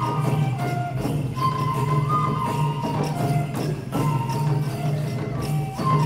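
Live Japanese folk music for a koma odori horse dance: a high flute plays a short stepped phrase again and again over a steady drum beat, with bells jingling throughout.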